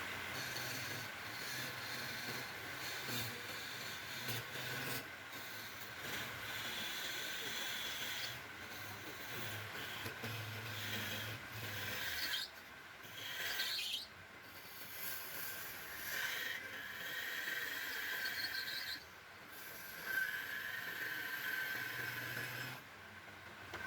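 Wood lathe running while a tool scrapes the spinning wood, a steady rasping over a low motor hum, with the sound breaking off abruptly several times.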